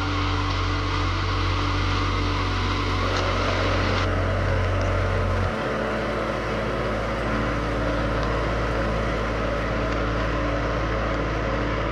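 Steady hiss with a strong low hum from a gas stove with a pot of noodle soup boiling on it. The hum drops in pitch about halfway through.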